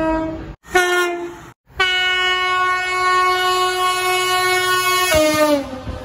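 Diesel freight locomotive sounding its horn: two short blasts that cut off abruptly, then one long steady blast. About five seconds in, the horn's pitch drops as the locomotive passes close by, and the rumble of the passing container wagons follows.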